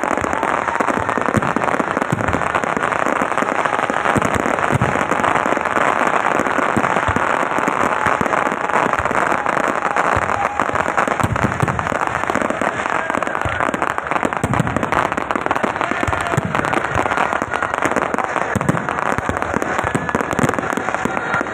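Chakri (spinning ground-wheel fireworks) fizzing and crackling without a break: a dense hiss full of small rapid crackles, with no single big bang.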